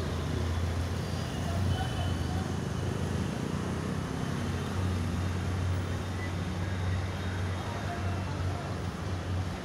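Street noise: a steady low rumble of vehicle engines and traffic, with faint voices in the background.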